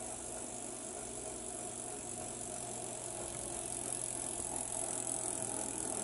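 Steady background hum and hiss with no distinct events: room tone.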